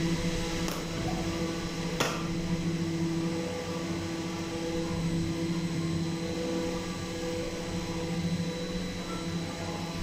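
Soap extruder (plodder) running with a steady machine hum as it pushes out a continuous bar of soap. A sharp knock about two seconds in.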